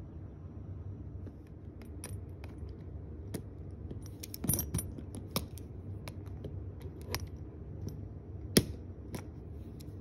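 Scattered sharp clicks and metallic clinks, about eight or nine, from a luggage TSA combination lock and the suitcase's metal zipper pulls being worked free of it; the loudest clink comes a little over eight seconds in.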